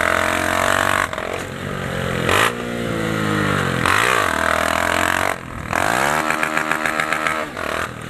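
Honda CG 150 Titan's single-cylinder four-stroke engine through a straight-through exhaust, revved hard while riding: the pitch climbs and drops sharply about four times. In the second half it breaks into a rapid, even stutter as it hits the rev limiter.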